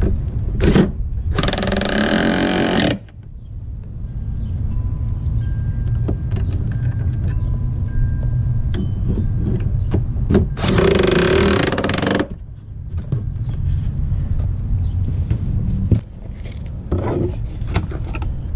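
Cordless power driver run in two bursts of about two seconds each, driving screws into a plastic line set cover, over a steady low rumble.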